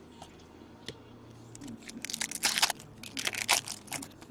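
Foil trading-card pack wrapper crinkling and tearing in quick bursts as it is ripped open and handled. It starts about a second and a half in and goes on nearly to the end.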